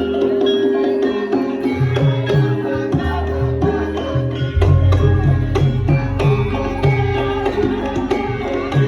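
Javanese gamelan music for lengger dance: hand-drum (kendang) strokes in a steady rhythm over sustained ringing metallophone tones, with a deep gong tone entering about halfway through.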